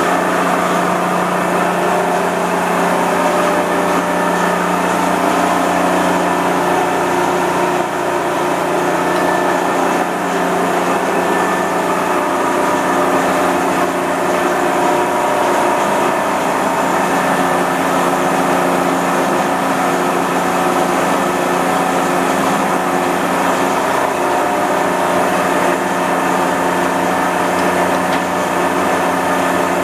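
Elliot Concord 450 engine lathe running with its spindle and chuck turning and no cut being made: a steady hum from the headstock drive, made of several fixed tones at an even level.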